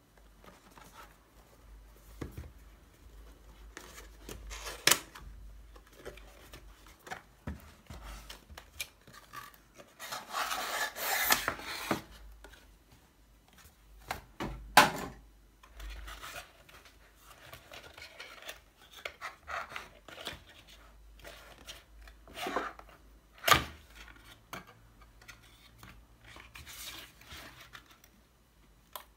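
Cardboard packaging of a computer mouse being handled and opened: cardboard rubbing and sliding, with scattered sharp clicks and knocks. A denser scraping stretch comes about ten seconds in.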